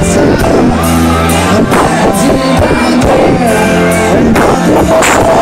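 Loud band music: held chords over bass with regular drum hits, and a voice singing a melody over it.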